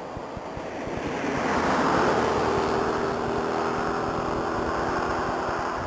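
A motor vehicle passing on the road: tyre and engine noise swells about a second in, is loudest around two seconds with a steady engine hum, and fades near the end. Wind buffets the microphone throughout.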